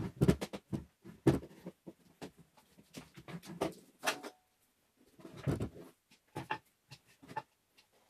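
Handling noise on a wooden bench: an electric hand planer and a rubber vacuum hose being moved and set down, with irregular knocks, scrapes and a few dull thumps, the strongest near the start and about five and a half seconds in; near the end a plastic bottle is handled. The planer's motor is not running.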